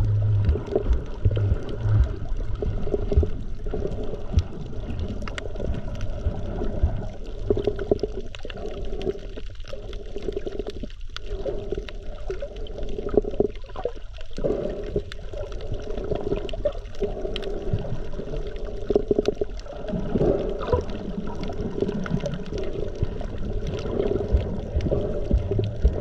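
Muffled underwater sound of water moving around a submerged action camera: a low, steady rumbling and gurgling with many small ticks and clicks.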